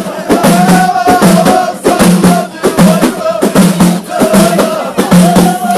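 Ahidous music: a group of Amazigh voices chanting together in repeated phrases over a steady, fast beat of frame drums.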